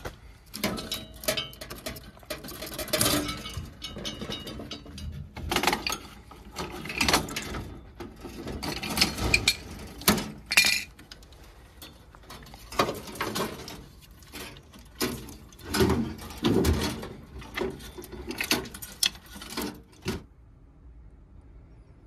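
Metal-on-metal clanks, clicks and scraping of a wrench and fittings as the gas valve is spun off a Weil-McLain boiler's gas piping. The knocks come in irregular clusters and stop about twenty seconds in.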